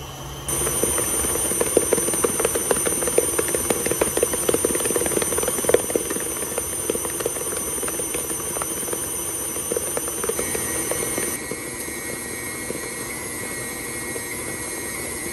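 KitchenAid Classic stand mixer running on high, whipping buttercream in a glass bowl: a steady motor whine with a dense patter of small clicks, getting louder about half a second in and shifting in tone about ten seconds in.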